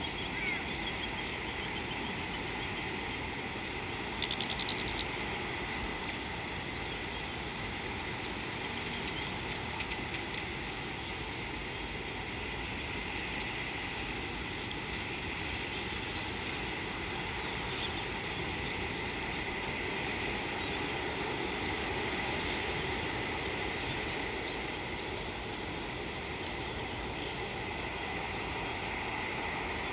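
Insect, likely a cricket, chirping high and steadily, a little under two chirps a second, every other chirp louder, over a steady outdoor hiss.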